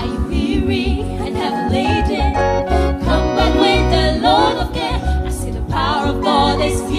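Gospel choir singing with instrumental accompaniment and a steady bass line.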